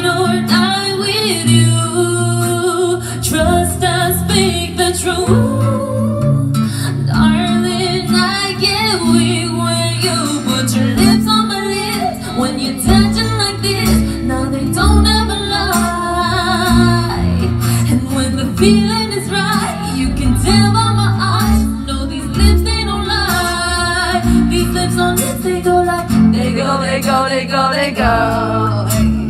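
A woman singing a pop song live into a microphone, with keyboard and heavy bass accompaniment.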